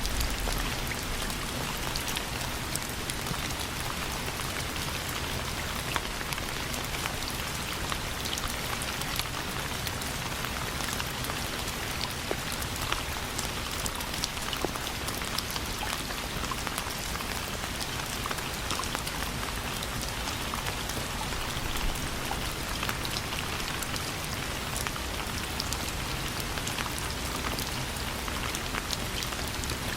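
Steady rain falling on a surface, an even hiss scattered with individual drop ticks.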